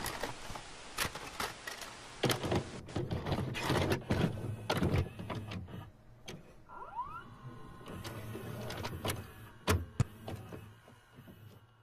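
Videocassette recorder taking in and starting a VHS tape: a string of irregular mechanical clicks and clunks from the tape mechanism, with a brief rising motor whine near the middle.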